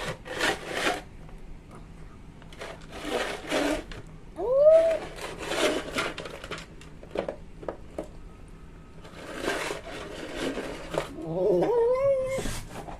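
Tabby cat crunching dry kibble from a ceramic bowl in repeated bursts, with a short rising cat call about five seconds in and a longer, wavering call near the end.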